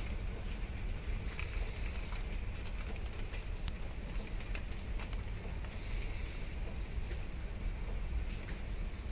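Scattered small clicks and rustles of a plastic wiring-harness connector and its wires being turned over in the hand, over a steady low rumble.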